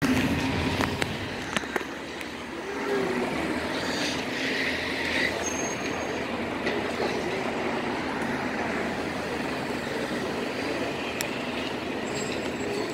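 City street traffic: city buses and cars running and driving past, with a steady engine tone wavering in pitch and a few light clicks.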